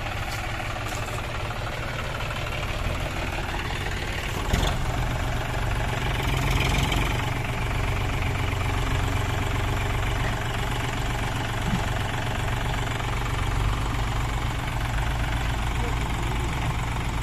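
Diesel engines of a John Deere 5039D tractor and a JCB backhoe loader running steadily together under load, as the backhoe bucket pushes the tractor's heaped soil trolley. A single sharp knock comes about four and a half seconds in.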